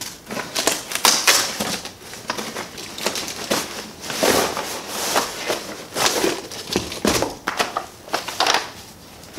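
Packaging being handled and rummaged through: irregular rustling and crinkling with sharp clicks and knocks.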